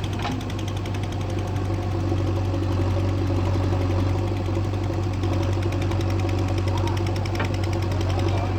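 Heavy diesel machinery engine running steadily: a low hum with a fast, even beat.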